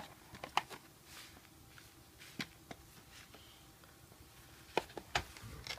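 Scattered faint clicks and light handling noise of trading cards and booster packaging being moved about, with a few sharper ticks near the end.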